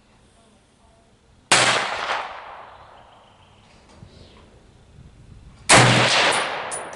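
Two 7.62x51mm rifle shots from an M14-pattern semi-automatic rifle, about four seconds apart, each followed by an echo that dies away over about a second. Brief metallic ringing follows the second shot.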